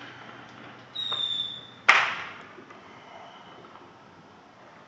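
Firework whistling at a high, steady pitch for under a second, then one sharp bang with a short fading echo. A fainter whistle follows a second later.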